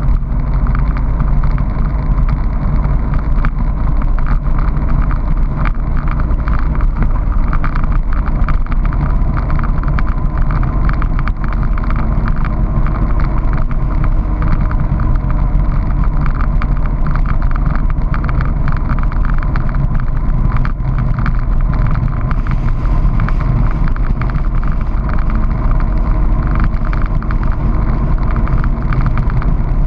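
Honda PC800 motorcycle's V-twin engine running steadily at cruising speed, mixed with wind noise on the microphone.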